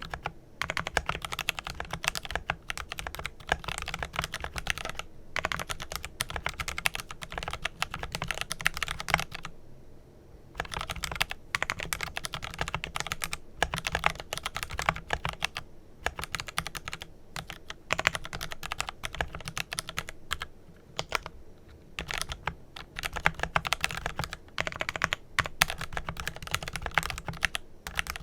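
Glorious GMMK Pro mechanical keyboard with lubed Kailh Pro Purple tactile switches being typed on quickly: a dense run of keystrokes, with a pause of about a second roughly nine seconds in.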